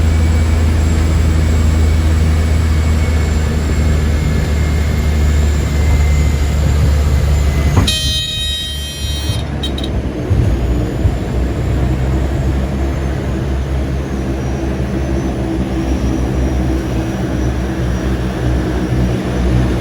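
Seaplane's propeller engines droning steadily. About eight seconds in there is a brief high-pitched tonal sound, and after it the engine note changes.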